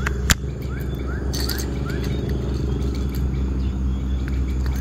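A steady low motor drone, as from an engine running some way off, with one sharp click about a third of a second in. A few short rising bird chirps come between about one and two seconds in.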